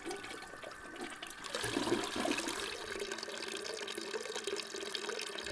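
A toilet flushing: water rushing.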